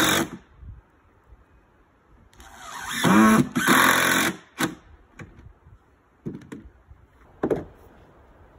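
Cordless drill driving a screw into a wooden floor board: the motor spins up, rising in pitch, for about two seconds midway, after a previous run cuts off just at the start. A few short knocks and clicks follow as the tool is shifted on the boards.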